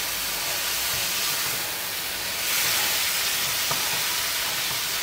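Leafy greens and tomatoes sizzling as they fry in a non-stick wok while being stirred with a spatula. A steady hiss swells a little about halfway through.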